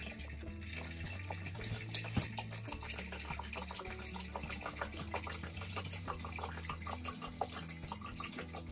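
A martini being strained from a stainless steel cocktail shaker into a glass: a thin stream of liquid trickling and splashing into the glass.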